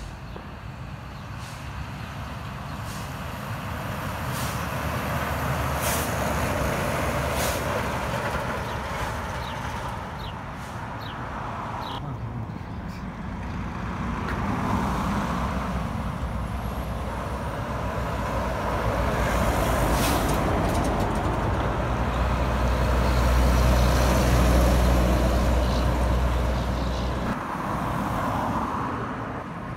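Heavy trucks and cars driving past on a highway: diesel engine and tyre noise swells as each vehicle approaches and passes, then fades. The loudest pass, with a deep engine drone, comes about three-quarters of the way through.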